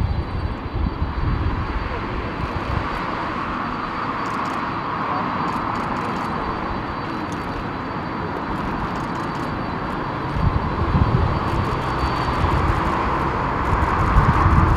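An Airbus A380's four Rolls-Royce Trent 900 turbofans at takeoff thrust, heard from a distance as a steady rushing jet roar while the airliner lifts off and climbs out. About ten seconds in, a deeper rumble swells and the roar grows louder.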